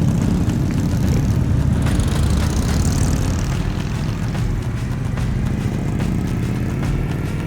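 Loud, steady low engine rumble of vehicles running, cutting in suddenly.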